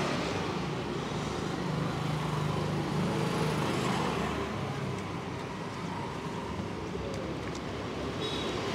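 Steady road traffic noise, with a vehicle engine passing about two to three seconds in.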